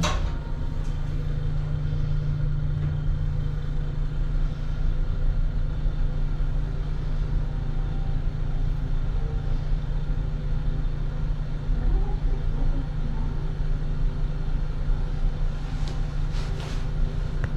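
Elevator car travelling between floors: a steady low hum and rumble from the car's ride and drive, with a few clicks near the end as it comes to a stop.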